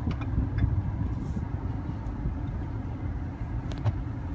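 Steady low rumble of the repo truck running, heard from inside its cab.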